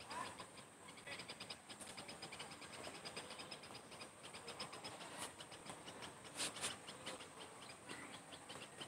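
Faint, rapid, even chirping of insects, with a brief click about five seconds in and a louder double click around six and a half seconds.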